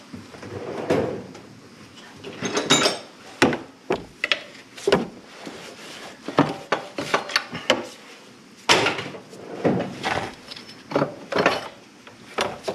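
Irregular metal clanks and knocks as a pry bar works a Dodge Journey's power steering pump loose from its mounting and the pump is pulled out by hand.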